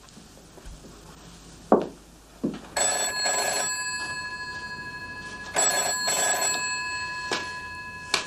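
The bell of a rotary-dial telephone ringing in the British double-ring pattern: two rings, each of two short bursts, with the bell tone hanging on and fading between them. A sharp knock comes shortly before the ringing starts, and a click near the end as the handset is picked up.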